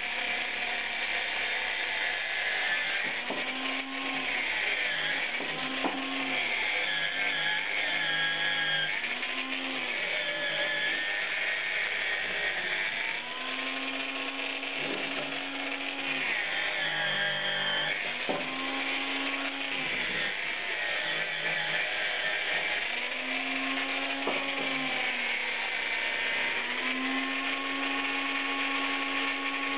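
Hand-held angle grinder with a sanding disc running and working a bent metal handlebar tube. Its motor pitch sags each time the disc is pressed onto the work and climbs back when it is eased off, over and over, over a steady grinding hiss.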